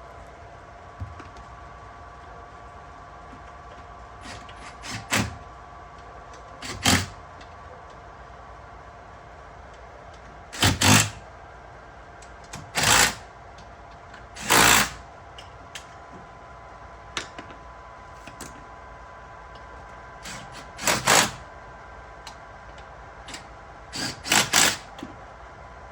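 Power driver running in mounting bolts in short bursts of about half a second, roughly eight times, as the jet pump is drawn tight against its greased gasket. A steady faint hum sits underneath.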